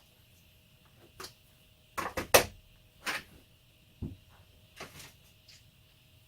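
A chainsaw being handled and taken apart: scattered knocks and clunks of tools and plastic and metal saw parts. The loudest is a quick cluster of clunks about two seconds in, with single knocks before and after.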